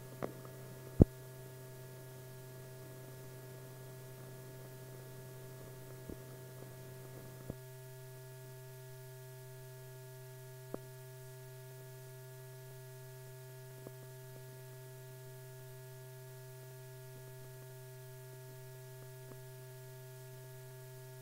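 Steady low electrical hum with a few faint higher tones above it, broken by scattered clicks and pops, the loudest about a second in: background noise of an old optical film soundtrack.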